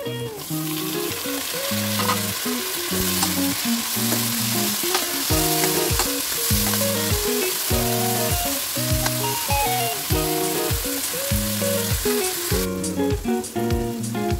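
Onions frying in oil in a kadhai, sizzling loudly as chopped tomatoes and green chillies are tipped in and stirred with a steel spoon. The sizzle cuts off shortly before the end, and background music plays under it throughout.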